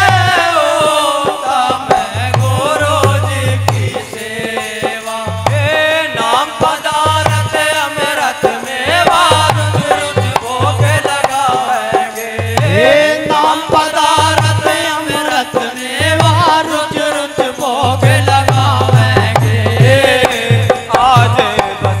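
Live devotional aarti sung by a group of men into microphones, with a drum beating a steady rhythm and hand percussion from wooden clappers and a one-string ektara.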